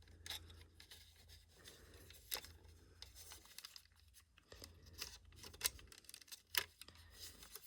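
Faint clicks and rustles of an Ei smoke alarm's plastic casing and parts being handled, with a few sharper clicks about two and a half seconds in and near the end, over a low steady hum.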